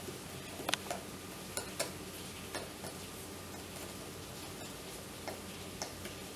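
A handful of irregular sharp clicks from a screwdriver working small screws that fix an electric kettle's male holder (power connector) into its plastic base, over a steady low hum.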